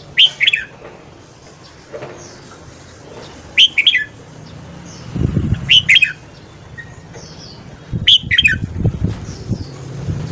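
Red-whiskered bulbul singing four short, loud phrases, one every two to three seconds, each a quick run of bright notes. A low rumble comes and goes between the phrases.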